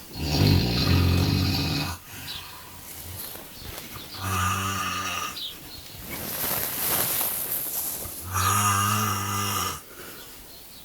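A man snoring loudly in sleep: three long snores about four seconds apart, with a breathy exhale between them.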